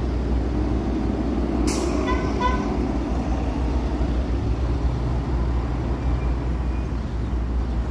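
Truck engine rumbling in street traffic, with a sharp air-brake hiss just under two seconds in, followed at once by a brief squeal.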